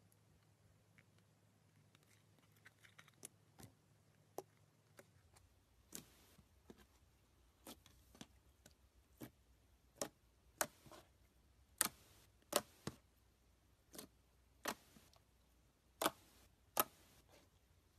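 Fingers pressing and poking glossy clear slime, making sharp little pops and clicks roughly once a second that grow louder toward the end. The first few seconds are nearly quiet, with only a few faint clicks.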